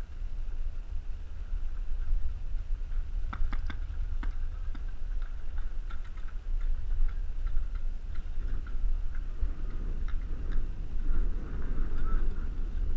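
Low rumble of wind and movement on a body-worn action camera's microphone, with a quick run of sharp clicks about three to five seconds in and scattered fainter ticks after.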